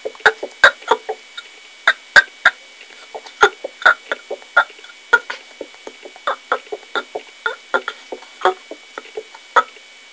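A rapid run of short burps, about three a second, unevenly spaced and varying in loudness.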